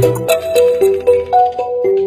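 Intro jingle music: a melody of short, evenly spaced pitched notes, about four a second. The low bass drops out shortly after it begins.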